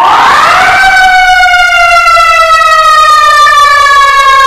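Peterbilt fire engine's siren sounding very loud: it starts suddenly, winds up in pitch in under a second, then holds and slowly slides down in pitch.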